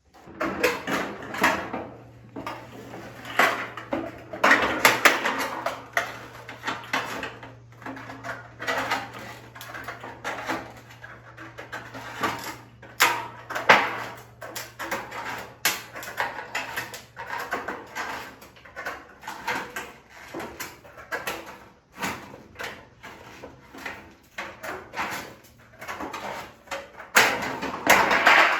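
Sheets of metal roofing clanking, rattling and scraping as they are handled and worked, in irregular sharp knocks. A steady low hum runs under the first two-thirds and then stops.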